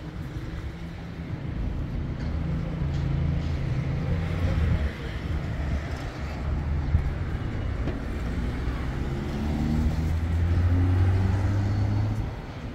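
A motor vehicle's engine running, its low hum shifting in pitch, swelling near the end and then easing off suddenly.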